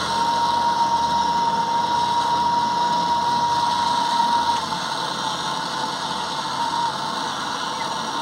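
Brazing torch flame hissing steadily while a 5% silver brazing rod is melted onto a weakened copper refrigerant line to stiffen it, with a steady high-pitched tone running through it.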